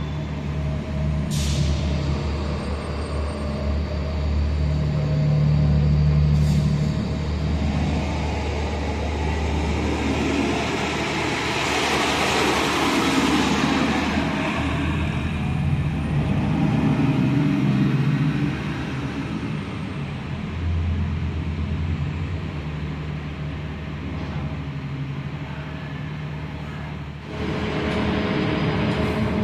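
City transit bus engines running in an enclosed concrete bus terminal, with a steady low hum. The sound swells about halfway through as a bus drives close past, with a couple of short air hisses earlier on.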